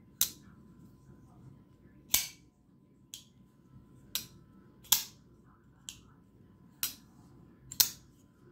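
Damned Designs Djinn XL folding knife being flicked open and snapped closed over and over: about eight sharp clicks of the blade deploying and shutting, roughly one a second, some louder than others.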